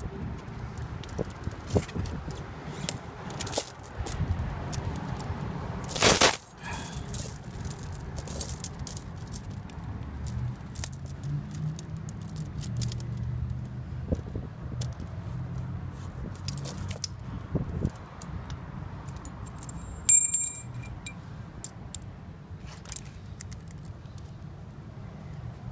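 Steel links of a studded ATV tire chain clinking and jangling as it is handled and hooked together on the tire, with several sharper metal clanks.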